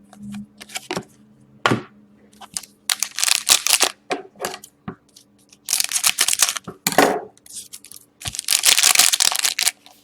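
Plastic wrappers and card packs crinkling and rustling in bursts as trading card packs are opened and handled, with small clicks and taps between.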